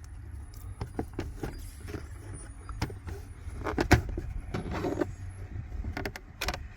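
Plastic dashboard trim panel being pulled and worked free by hand: irregular clicks, rattles and knocks, with a sharper knock about four seconds in.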